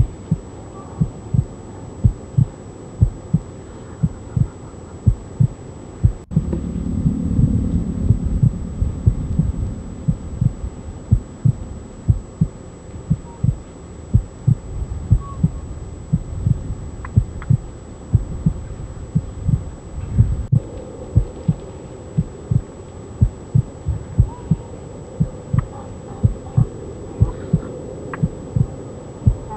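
A steady beat of low thumps, about two a second, over a low hum.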